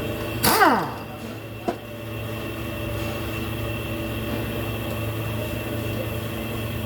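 Steady mechanical hum. About half a second in there is a short whine that falls quickly in pitch, the loudest moment. A sharp click follows just under two seconds in.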